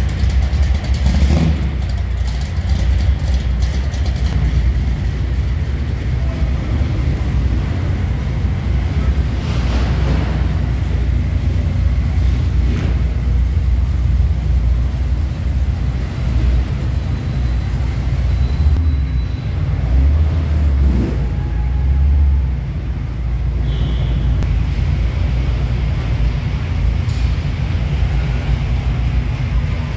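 Engines of custom cars rumbling at low speed as they drive past one after another, a steady deep exhaust rumble with a few sharp clicks in the first seconds.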